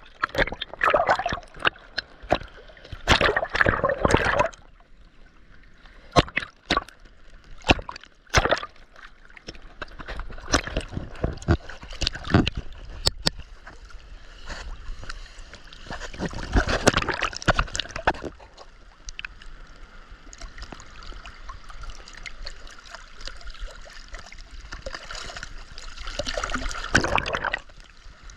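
Sea water splashing and sloshing, with many sharp little splashes and louder bursts of sloshing in the first few seconds, again midway and near the end.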